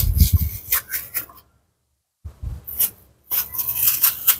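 Steel spoon scraping and scooping watermelon flesh out of the rind: a run of rough, rasping strokes with a short silent gap about halfway through.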